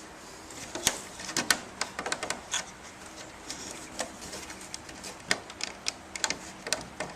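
Irregular sharp clicks and taps of the cracked plastic fan top being handled and turned over, starting about a second in.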